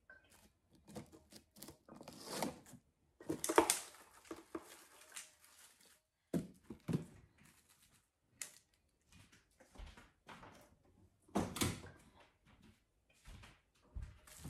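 Kitchen handling noises: a plastic-wrap box and a bowl moved about on a counter, with scattered rustles, clicks and knocks. The loudest comes about three and a half seconds in, another near the end.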